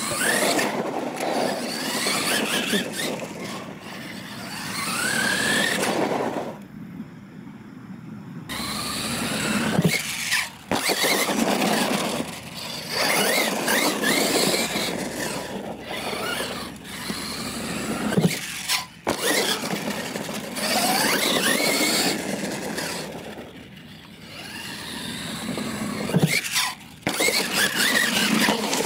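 Losi LMT radio-controlled monster truck running on a 2S LiPo battery: its brushless electric motor whining up and down with the throttle over the scrabble of its tyres on loose dirt. It comes in several loud runs with short lulls between.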